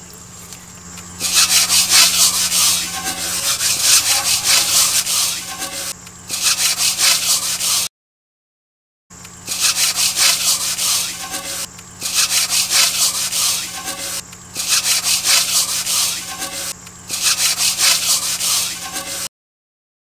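Aluminium pot being scoured by hand: a gritty rubbing of quick strokes, in bursts of one to three seconds with short pauses between. The sound cuts out completely twice, for about a second each time.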